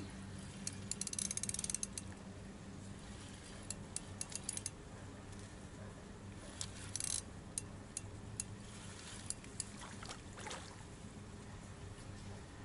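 Fixed-spool fishing reel being wound, its mechanism giving runs of rapid ticking clicks that start and stop several times. A steady low hum sits underneath.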